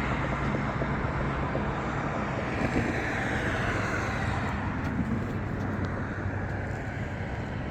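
Road traffic: vehicles running and passing, with a steady low engine hum under tyre and road noise that eases slightly toward the end.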